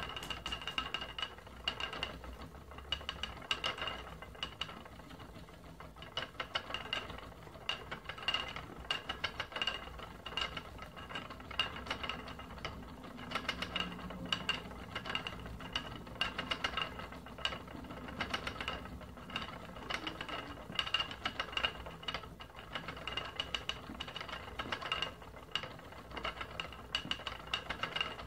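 Wooden treadle spinning wheel running: a steady, fast mechanical clicking and rattling from the turning wheel and flyer, with a thin high squeak that repeats at a regular beat.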